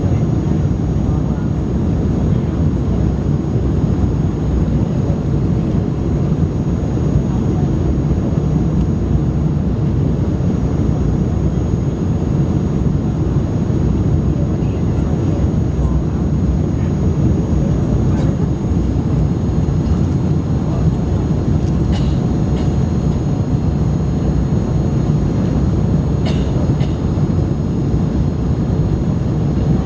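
Airbus A300 cabin noise heard from inside the passenger cabin: a steady, loud low rumble of the jet engines and airflow, with a few faint clicks in the second half.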